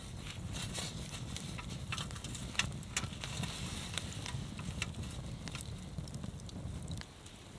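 Wood campfire crackling with sharp, irregular pops over a steady low rumble; the low rumble cuts off about seven seconds in.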